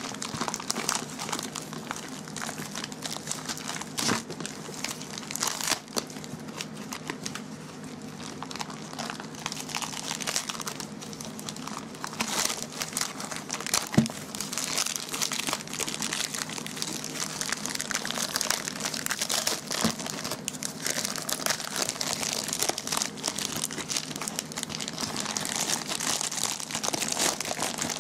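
Plastic poly mailer bag crinkling and tearing as it is ripped open by hand, with the black plastic wrap inside rustling. A sharp click stands out about halfway through.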